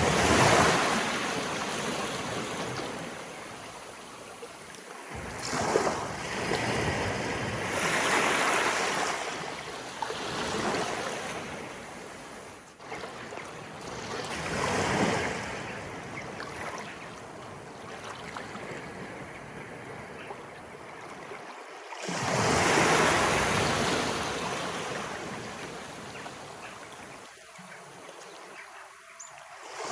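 Sea waves of an incoming tide rolling in and splashing up the shore, each surge swelling and fading over a few seconds. The strongest surges come at the very start and a little past two-thirds of the way through.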